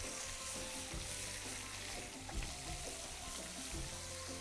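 Pieces of shaari fish (spangled emperor) sizzling steadily as they fry in hot oil in a frying pan.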